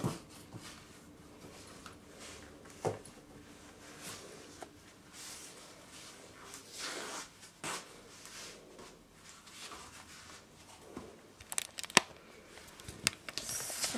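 Rustling, scraping and scattered clicks from a handheld camera being moved about and handled, with a cluster of sharp clicks in the last few seconds.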